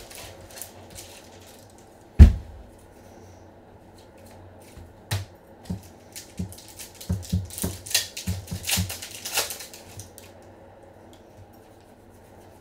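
Trading cards and packs being handled on a table: one heavy thump about two seconds in, then a scattered run of light clicks and taps between about five and ten seconds in, over a low steady hum.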